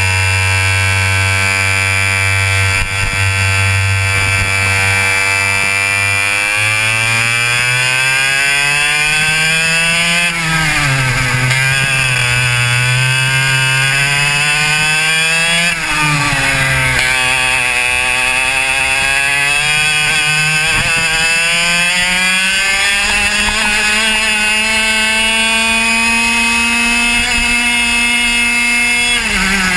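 Racing kart's two-stroke engine under full throttle, its pitch climbing steadily along the straights and dropping sharply at about ten and sixteen seconds and again at the very end as the throttle is lifted for corners, then climbing again.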